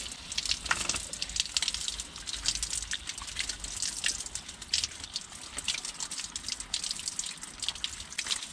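Water running from an outdoor garden tap and splashing over a pair of steel cutters held in the stream, then onto the ground below.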